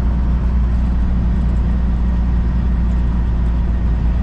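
Semi truck's diesel engine and road noise: a steady low drone heard from inside the cab while driving.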